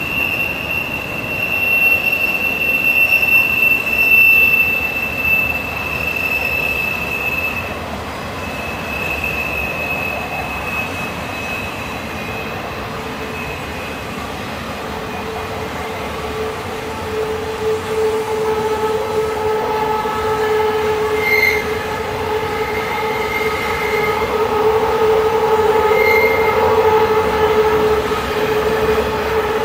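Freight train of intermodal well cars rolling through a curve, wheel flanges squealing over the steady rolling noise: a high squeal at first, then a lower squeal with several tones from about halfway.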